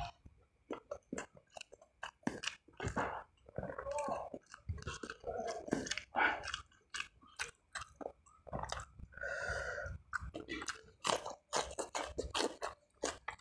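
Close-up chewing of spicy meatball and smashed tempe: a constant, irregular patter of wet chewing and biting sounds. Near the end comes a bite into a raw leafy green.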